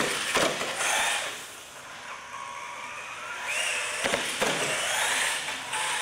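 Radio-controlled scale truck's electric motor whining, rising and falling in pitch with the throttle. The truck's wheels and chassis hit the ramps and the floor with sharp knocks, about half a second in as it lands a jump and again about four seconds in as it goes over a second ramp.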